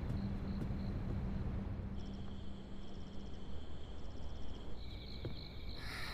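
Crickets chirping in short, evenly pulsed trills, as night ambience. A low steady drone underneath fades out about halfway through.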